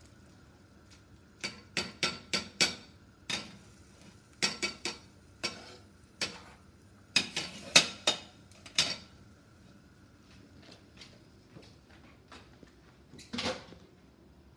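Metal utensils and cookware clanking and clinking on the stovetop: a quick series of sharp knocks in the first nine seconds or so, then a single longer clatter near the end.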